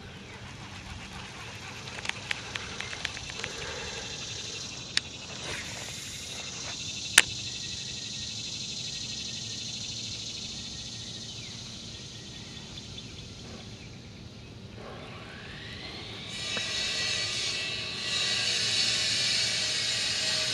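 Several light clicks and two sharp snaps in the first seven seconds. About sixteen seconds in, a concrete saw starts up with a rising whine and keeps running as a loud, steady high-pitched whine and hiss.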